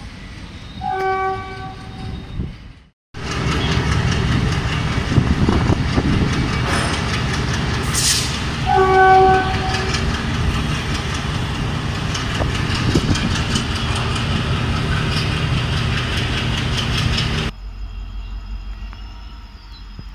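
Diesel locomotive hauling a freight train of covered wagons past, its engine running and the wheels clattering on the rails, with one short horn blast about nine seconds in. A similar short horn sounds about a second in, and near the end the sound drops to a much quieter distant train.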